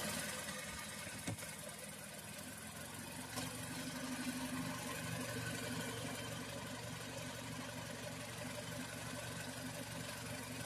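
Mazda CX-5 engine idling steadily on fresh oil, run after an oil change to check for leaks. A couple of light clicks sound in the first few seconds.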